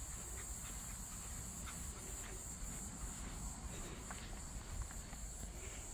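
Quiet outdoor ambience: a steady high insect chirring, with a few faint soft footsteps on a coir trail mat.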